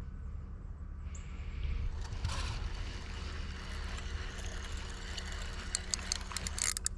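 Fishing reel being cranked while a hooked fish is fought in, its gears whirring with a fine ticking, and a quick run of sharp clicks near the end.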